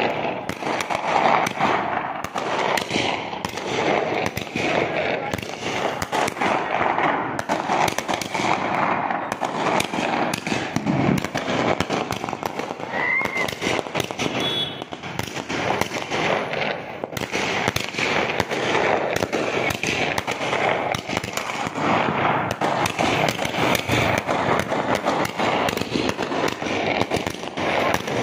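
A multi-shot aerial firework cake, rated at 250 shots, firing continuously: shells launch one after another and burst overhead in a dense, unbroken run of rapid bangs and crackling.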